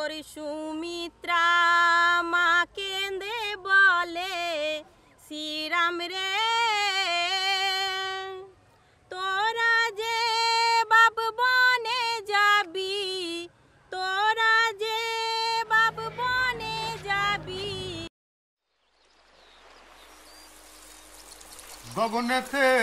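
A woman singing unaccompanied in Bengali, a patua's scroll song (pater gaan), in long wavering phrases with short breaths between. It cuts off suddenly about three-quarters through. A rising hiss follows, and near the end a voice starts another Bengali folk song.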